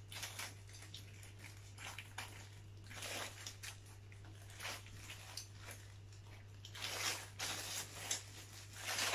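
Rustling of a clear plastic pole bag and light clicks of folded tent poles as the bundle of poles is pushed down into it, loudest about three seconds in and again around seven seconds in. A steady low hum runs underneath.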